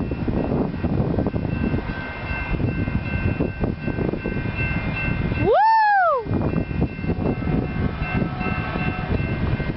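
Caltrain express passenger train passing close by: steady rumble and rattle of the cars running over the track, with faint steady tones above it. About halfway through, a loud "woo!" whoop that rises and falls in pitch cuts in briefly.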